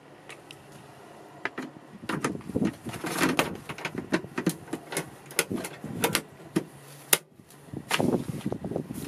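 Handling noise from a small truck's cab floor: rustling and irregular knocks and clicks as the floor carpet is lifted off the plastic engine access cover and laid back down, with one sharp click about seven seconds in.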